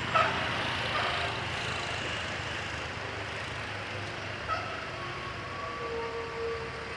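Jammed traffic with engines idling under a steady rumble. Two short pitched calls come near the start, and a faint held horn tone sounds in the last couple of seconds.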